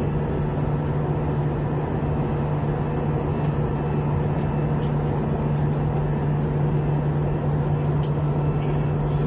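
Airliner cabin noise in flight: a steady drone of engines and rushing air, with a strong constant low hum.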